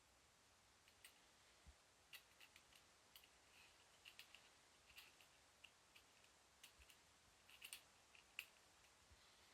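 Near silence: faint room tone with light, irregular clicks and ticks, about twenty of them, bunched most thickly near the end.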